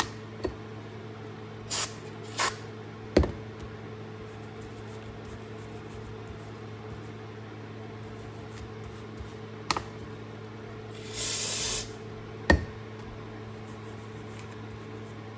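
Short hissing sprays of cleaner blasting grime off a Snap-on ratchet: two brief ones early, then one of nearly a second later on. Three sharp knocks of metal tools handled on the bench fall between them, over a steady low hum.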